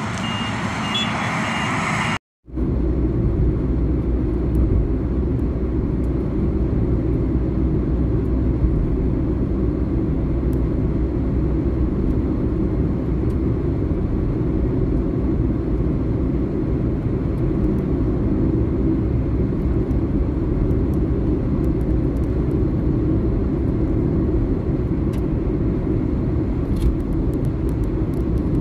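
Car driving at road speed: a steady low rumble of tyres and engine, heard from inside the vehicle. It starts after a brief dropout about two seconds in, before which a high repeating beep sounds over noise.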